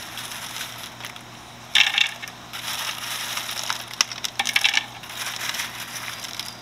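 Handfuls of Biohome Ultimate filter media pellets scooped from a plastic basket and dropped into an Eheim 2217 canister filter, clinking and clattering against each other. The clatter comes in bunches, the loudest about two seconds in and again around four seconds in, with lighter clicks between.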